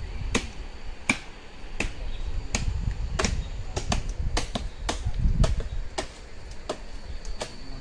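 Machete chopping at a sugar palm: sharp strikes, irregularly spaced, about one or two a second.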